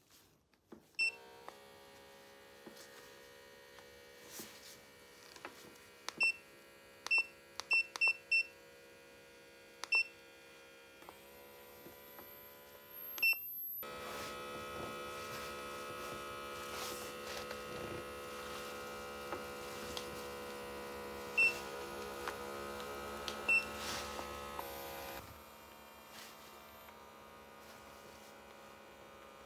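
Leg air-compression massager in use: its control unit beeps about ten times as buttons are pressed, over the steady hum of its small air pump. The pump runs louder from about halfway through, then cuts back to a faint hum near the end.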